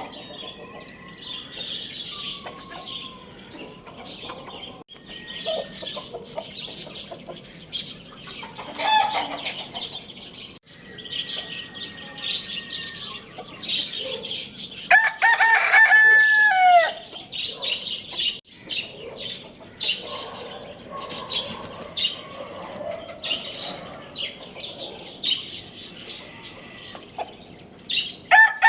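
A rooster crows loudly once about halfway through, a long call that falls in pitch at its end, with another crow beginning right at the end. Chickens cluck and small birds chirp throughout.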